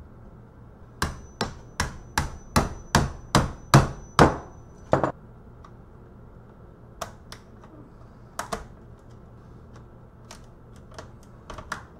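About ten sharp knocks in quick, even succession as a laptop screen assembly is taken apart. They are followed by scattered lighter clicks and taps.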